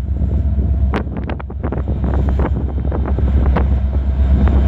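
Freight train passing close by: a steady heavy rumble with wheels clicking sharply and irregularly over the rail joints. Wind is buffeting the microphone.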